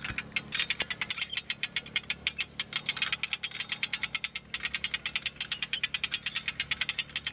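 An engine idling steadily: a fast, even ticking about ten times a second over a low hum.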